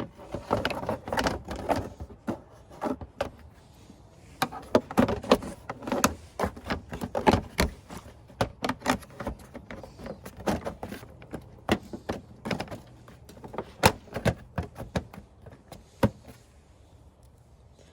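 Plastic engine-bay cover being handled and fitted into place: a string of irregular clicks, taps and knocks as it is positioned and pressed down. The clicks die away near the end.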